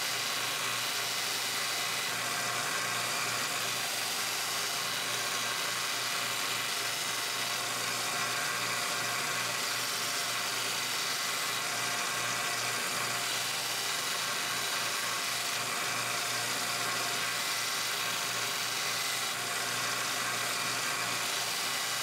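Small belt grinder running steadily, a constant motor hum under belt hiss, as a knife blade is held to the belt to sharpen the edge.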